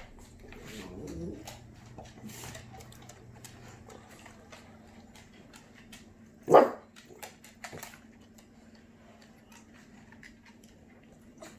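Small dogs vocalising: a wavering whine about a second in, then one short, loud bark about six and a half seconds in.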